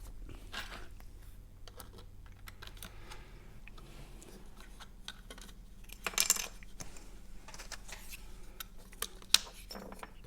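Light clicks and clatter of 3D-printed plastic pick-rack pieces being handled and fitted together, with a louder rattle about six seconds in and a sharp click near the end.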